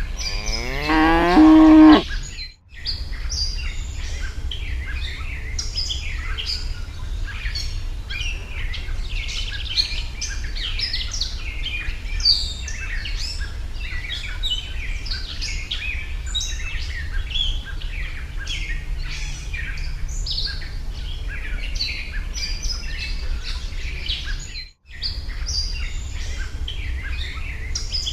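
A cow moos once in a loud call that rises in pitch, about two seconds long. Birds then chirp continuously over a steady low hum.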